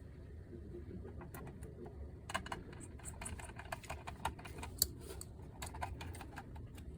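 Irregular light clicks and taps of small parts and tools being handled on the opened PlayStation 5 console, busiest in the middle, over a low steady hum.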